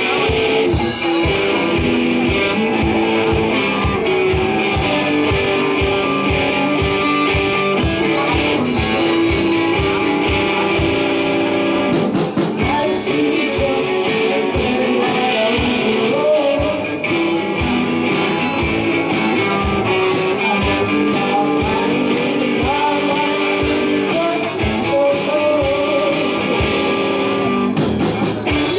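Live student rock band playing a song on guitars and drums, with singing. About twelve seconds in the drums pick up into steady, busy cymbal strokes.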